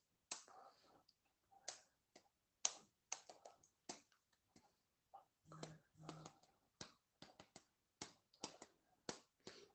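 Faint, irregular clicks of a computer keyboard and mouse over near silence, with a brief soft low vocal sound about five to six seconds in.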